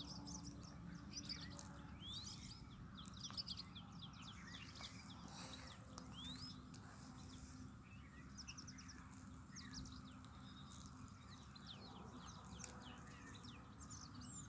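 Faint chirping of birds, many quick notes sweeping up and down, over a low steady background rumble.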